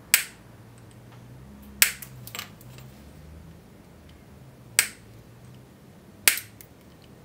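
Diagonal side cutters snipping the protruding ends off a pin header's metal pins, one pin per cut: four sharp snaps, with a fainter click soon after the second.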